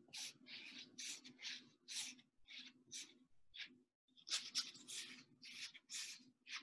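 Paintbrush scrubbing paint onto a stretched canvas: a run of short, scratchy strokes, about two a second, with a brief pause near the middle. A faint steady hum lies underneath.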